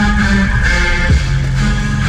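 Music: an instrumental stretch of a pro-Bolsonaro song between sung lines, with a steady bass line and one short thump a little over a second in.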